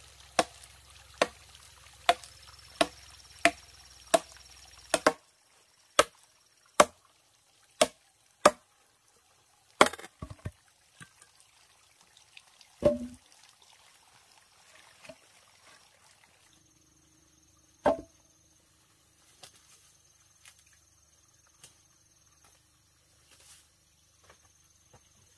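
Sharp strikes, like chopping, land at a steady pace of about three every two seconds for the first five seconds. After that they come sparser and irregular, a dozen or so single knocks spread over the rest.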